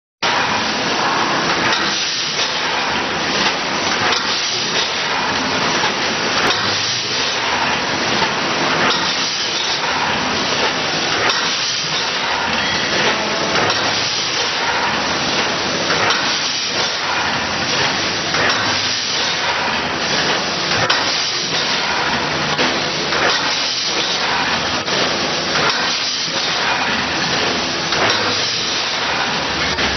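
Vertical form-fill-seal packaging machines with linear weighers running: a steady, loud mechanical hiss with frequent irregular light knocks.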